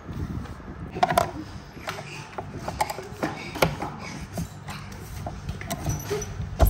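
Hand screwdriver turning screws through a transducer mounting plate into a plastic kayak hull: irregular clicks and scraping of the bit in the screw heads, with handling knocks.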